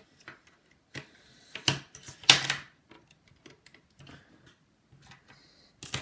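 iPhone 7 display being pried open from the frame: scattered sharp clicks and short scrapes, the loudest a scraping stroke a little over two seconds in, with another click near the end.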